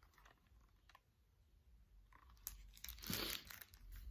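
Faint rustling of a picture book's paper pages being handled and turned, starting about halfway through after near silence and loudest a little past three seconds in.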